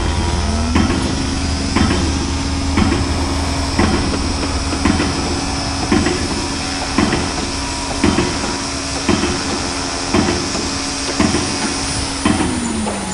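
Construction-site noise: hammer blows about once a second over a steady machine drone.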